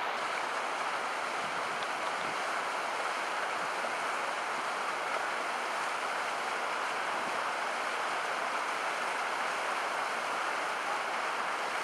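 Fast-flowing stream water rushing over rocks, a steady unbroken rush.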